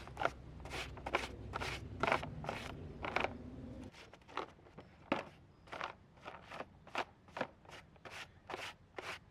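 Parts brush scrubbing a chainsaw chain in kerosene, in short scratchy strokes about two a second.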